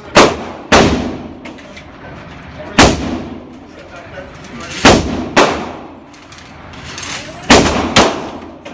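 Handgun shots on an indoor range: seven shots, mostly in quick pairs about half a second apart with a single shot between, each ringing on briefly off the range walls.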